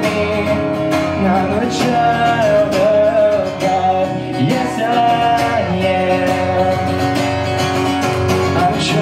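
Acoustic guitar strummed live, with a man's voice singing a held, wavering melody over it.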